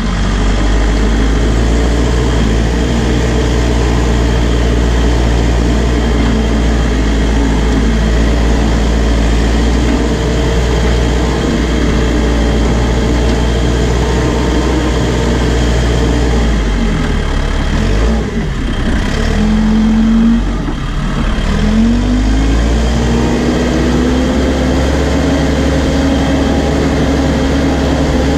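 New Holland B95 backhoe loader's diesel engine running steadily under load while the front loader bucket pushes dirt. About two-thirds of the way through, the engine note dips briefly and then climbs and holds higher as the full bucket is lifted.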